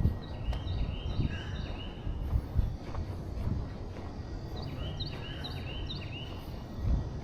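Outdoor ambience with a steady low rumble, over which a songbird sings two phrases of about five quick repeated chirps each, one starting just after the beginning and the other after the middle.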